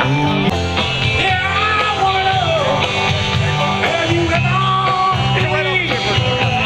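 Rock and roll music with a singing voice over guitar, bass and a steady beat.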